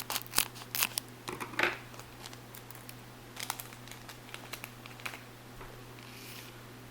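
Crinkles and light clicks of a small plastic candy-kit packet being handled and emptied into a plastic tray, mostly in the first two seconds, then a few faint scattered ticks.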